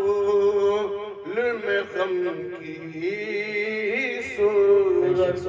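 A man singing a naat, unaccompanied, into a microphone. He draws out long held notes with wavering turns: one held note near the start, sliding phrases in the middle, and another long held note beginning near the end.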